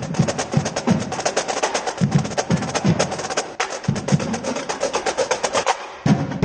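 Marching drumline playing in unison: rapid snare drum strokes and rolls over deeper drum hits in a steady rhythm. Near the end the playing breaks off briefly and comes back in with a loud accented hit.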